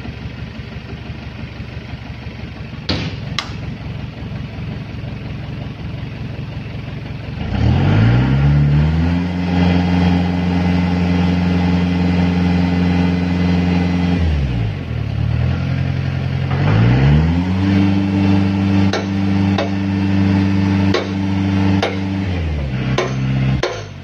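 Engine of a hydraulic concrete pile-press rig idling with a steady rapid knock, then revving up and holding high twice, each time for about six seconds, before dropping back to idle. A few sharp clicks come near the end.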